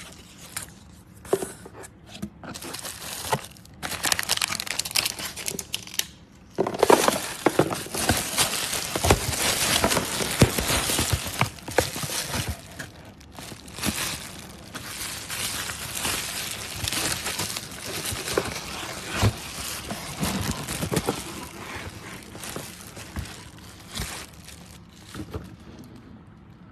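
Irregular rustling and crinkling with many scattered clicks, loudest from about seven to twelve seconds in, then easing off.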